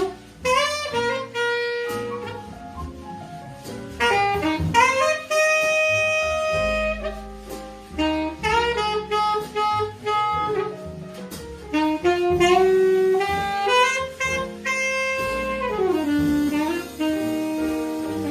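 Alto saxophone playing a slow jazz ballad melody in long held notes, with a falling slide about sixteen seconds in, over piano and bass accompaniment.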